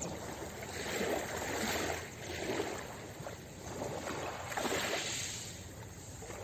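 Gentle sea waves lapping and washing onto a pebble beach, the wash swelling and fading every second or two, loudest about a second in and again near five seconds.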